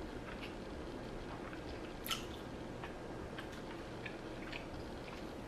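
Someone chewing food close to the microphone: scattered short mouth clicks over a low steady background, one click louder about two seconds in.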